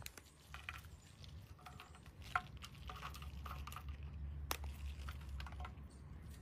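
Shredded cheese being sprinkled by hand onto slider buns in an aluminium foil pan: scattered light taps and crinkles, with two sharper clicks, over a steady low hum.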